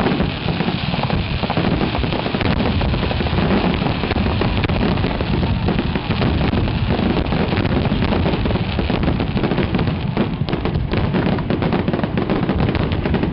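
Fireworks display: a dense, continuous barrage of shell bursts and crackling, with sharp individual crackles standing out more clearly in the last few seconds.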